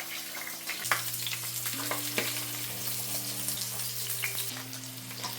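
Panko-breaded chicken cutlets frying in hot oil in a pan: a steady sizzle with frequent small crackles and pops.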